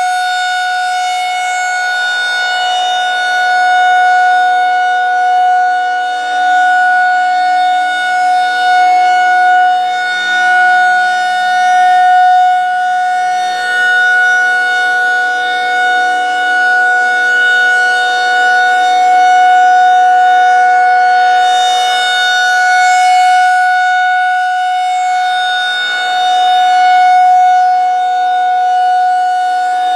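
Federal Signal 2001-SRNB rotating outdoor warning siren sounding a steady full-alert tone: one held pitch that swells and fades every few seconds as the turning horn sweeps toward and away from the listener.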